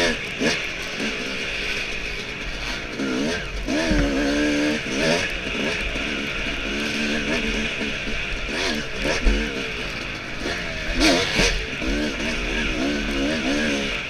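Yamaha dirt bike engine running under racing throttle, its pitch rising and falling over and over as the rider opens and closes the throttle between corners. A steady hiss runs underneath, with a few sharp knocks from bumps about two-thirds of the way through.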